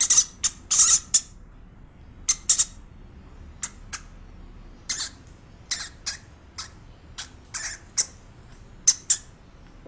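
Hamster squeaking: short, high-pitched squeaks at irregular intervals, often in quick runs of two or three, with pauses of up to a second between.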